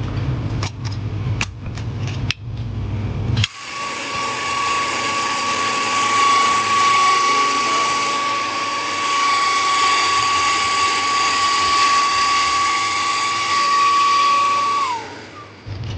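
A few clicks, then a small electric blower runs steadily for about eleven seconds with a high whine over a rushing hiss of air, blowing dust out of a laptop, before the motor winds down near the end.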